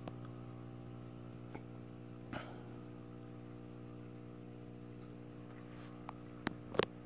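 Leslie Locke DF-36 ceiling fan running with a steady low motor hum. A faint click comes about two seconds in and a few sharper clicks near the end.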